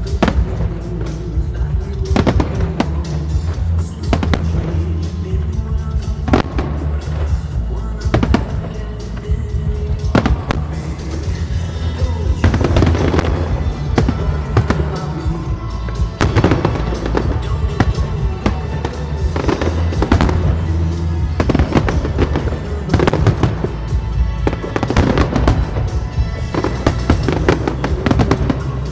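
Fireworks display: a continual run of bangs and crackles over loud music with a heavy bass.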